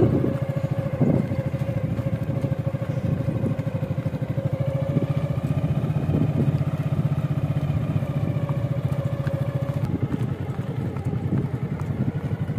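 Motorcycle engine running steadily at low speed, its fast even firing beat continuous, with a steady higher tone over it that stops about ten seconds in.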